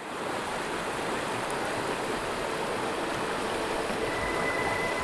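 Steady, even rushing noise that fades in at the start, with a thin steady high tone joining about four seconds in.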